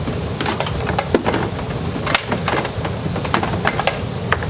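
Irregular clicks and rustles from handling sewing machine foot pedal controllers, their cords and a small bag, over a steady low hum.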